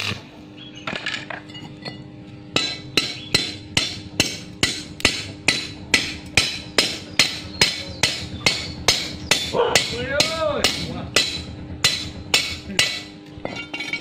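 Small hammer striking freshly welded steel pieces, knocking the slag off the welds: sharp metal taps at about two to three a second, starting about two and a half seconds in.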